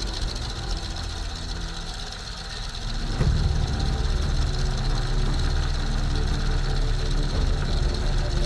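Max Holste Broussard's Pratt & Whitney R-985 radial engine running at idle on the ground, heard from a camera on the fuselage; about three seconds in it suddenly grows louder and stays so.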